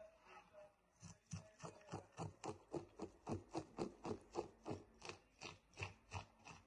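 Knife scraping the scales off a whole raw grouper: quick, even strokes, about four a second, starting about a second in.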